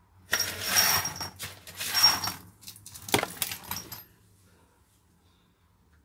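Small loose metal parts clattering and jingling as they are handled by hand, in three bursts with a thin high ring, dying away after about four seconds.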